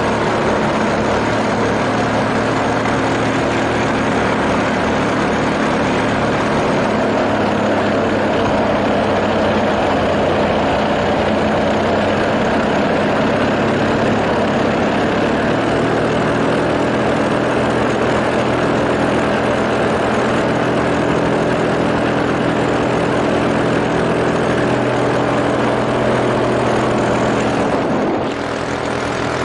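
Small propeller engine running steadily at constant speed with a low, even hum, over heavy wind rush; the level dips briefly near the end.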